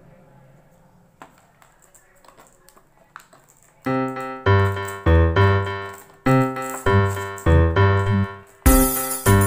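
Faint clicks of plastic packaging being handled, then background music comes in about four seconds in: a keyboard melody of evenly struck notes, joined near the end by bright jingling.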